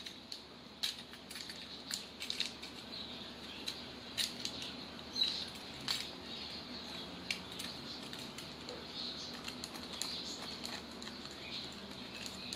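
Scattered sharp clicks, taps and scrapes of hard plastic and metal as a toy shotgun, steel pipes glued onto a plastic toy, is worked apart to take off its middle barrel.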